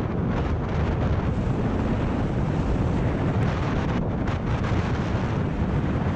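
Wind buffeting a GoPro's microphone on a skier running downhill at about 45–55 km/h: a steady low rumble, with the hiss of skis sliding over packed snow.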